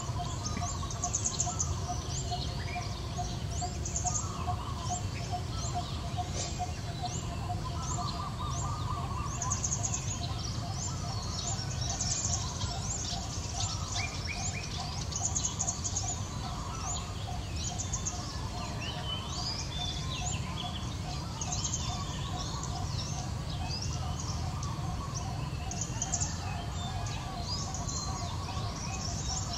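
Woodland birdsong: many small birds chirping and trilling, over a steady, rapidly pulsing low call and a low rumble.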